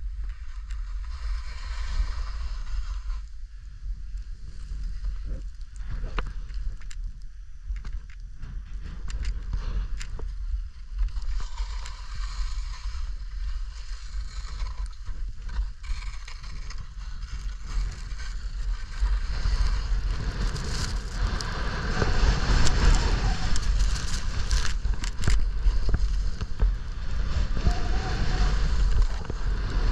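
Wind buffeting the body-mounted camera's microphone with a steady low rumble, over skis hissing and scraping through snow in swells with each turn. Both grow louder and busier in the second half as the run speeds up.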